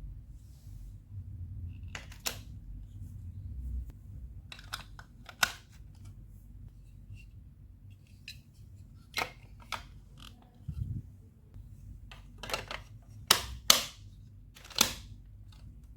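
Sharp, irregular clicks and knocks of hard Lego Duplo plastic pieces striking one another, about a dozen, with the loudest coming close together near the end.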